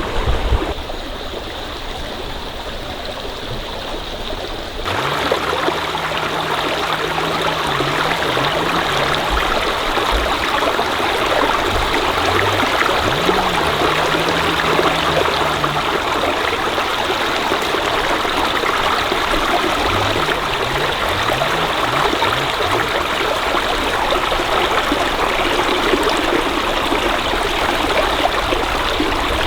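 Stream water flowing and rushing steadily, growing louder about five seconds in.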